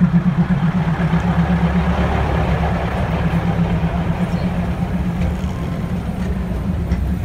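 Diesel passenger train rolling slowly past at very close range: a steady low engine drone with the rumble of the carriages.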